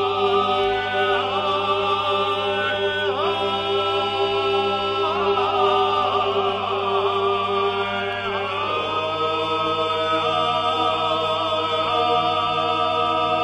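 Background music of choral chant: several voices singing together over a steady held drone note, the upper voices changing pitch every second or two.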